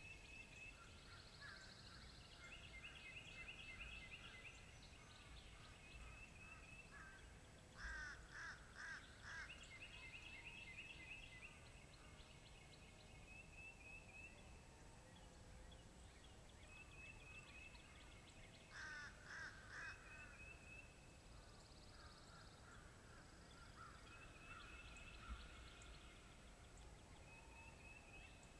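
Faint chorus of songbirds singing, with two louder series of harsh bird calls about eleven seconds apart, four calls in the first series and three in the second.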